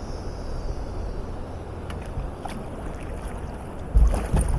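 Steady rush of moving river water around a kayak. About four seconds in, a loud knock and splash as the paddle is dug into a stroke.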